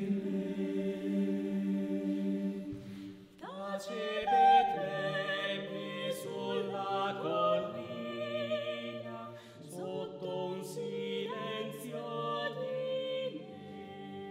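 Male-voice choir singing a cappella in harmony. A held chord gives way to a brief dip about three seconds in, then the voices come back in with a moving line and settle on a softer held chord near the end.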